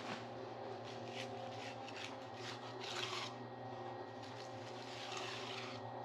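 Short scraping strokes of a hand tool over wet concrete, a few quick ones then a longer scrape near the end, over a steady machine hum.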